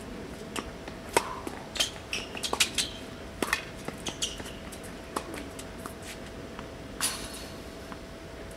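Tennis rally on an outdoor hard court: sharp pops of the racket strings striking the ball and the ball bouncing on the court, with the scuffs of tennis shoes as a player runs in and back. Under it runs a faint steady hum.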